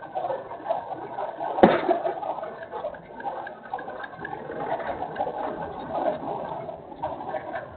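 Birds calling continuously, with doves cooing among them. A single sharp knock stands out about one and a half seconds in.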